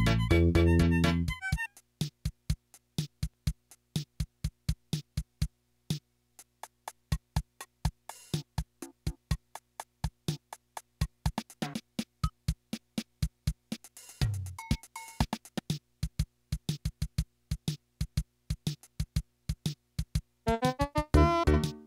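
Yamaha PS-6100 home keyboard: a few held chords, then its built-in rhythm section playing an electronic drum pattern alone, about three to four hits a second, with short tonal fills. Keyed chords come back in near the end.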